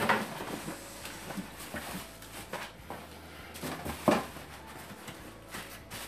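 Cardboard box holding a toaster oven being shifted and handled on a stone countertop: cardboard scraping and rustling with scattered knocks, and one sharp thump about four seconds in.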